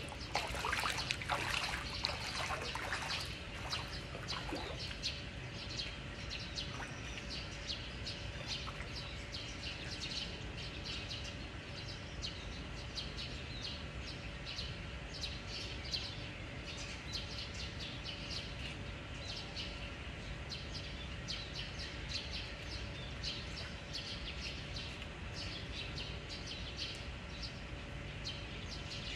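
Birds chirping repeatedly, many short calls, denser and louder for the first few seconds, over a steady low background rumble.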